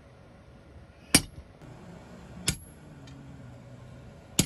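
Hammer blows on a steel blade resting on an anvil block: three sharp metallic strikes roughly a second and a half apart, each with a brief ring, the middle one softer.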